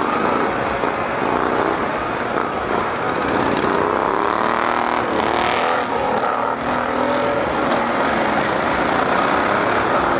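Several racing lawnmower engines running together, each revving up and down at its own pitch.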